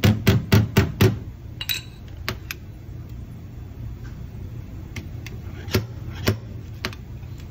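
Slide hammer on a spot-welded dent puller, its sliding weight knocking against the stop in quick strokes of about four a second as it pulls a ding out of a steel body panel. The strokes stop about a second in, followed by a few scattered light metal clicks.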